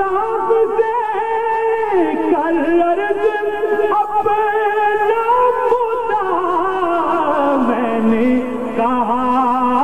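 A man's voice singing a naat in long, ornamented held notes that waver and glide. The melody slides down to a low sustained note about eight seconds in.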